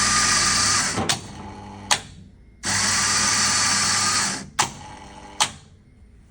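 Coffee vending machine's grinder whirring in two short runs, each followed by a pair of sharp clicks, as it grinds and drops a test dose of coffee for dose calibration.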